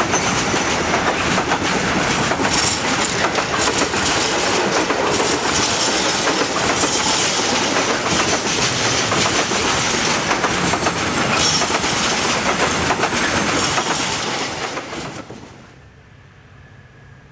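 Container wagons of a freight train rolling past at close range, their wheels clattering steadily over the rail joints. The sound drops away about fifteen seconds in to a faint low background.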